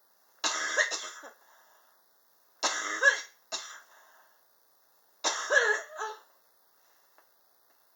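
A person coughing in a prolonged fit: three harsh coughing bouts a little over two seconds apart, the second followed by one short extra cough. The person blames the cough on extreme indoor temperatures.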